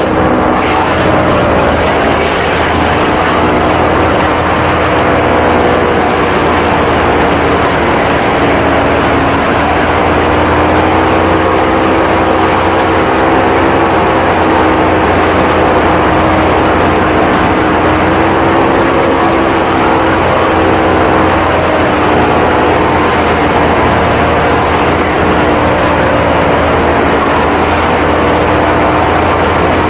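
Paramotor engine and propeller running steadily in flight, its pitch wavering slightly up and down.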